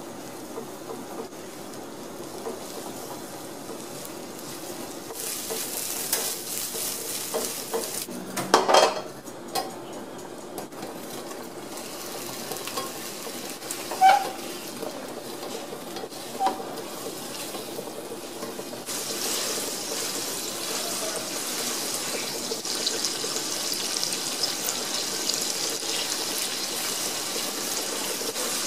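Eggs and then cubed tofu frying in oil in a wok, stirred with a silicone spatula. A steady sizzle runs throughout and grows stronger in the last third, with a few sharp knocks of the food or spatula against the pan about a third and halfway through.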